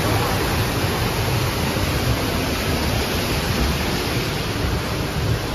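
Steady rushing of running water from the log-flume ride, a loud even noise with a low rumble under it.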